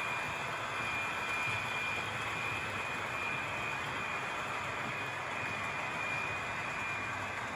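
Battery-powered HO scale model trains running on the track: a steady rolling hiss with a faint high whine that comes and goes.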